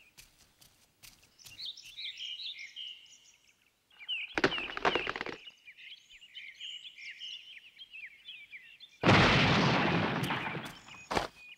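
Birds chirping throughout, with a noisy crash about four seconds in and a much louder crash about nine seconds in that fades away over two seconds.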